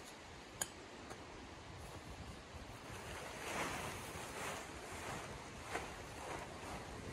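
Tent fabric rustling and swishing in several swishes from about three seconds in as it is lifted up off the ground, over a steady rush of background noise. A single sharp click about half a second in.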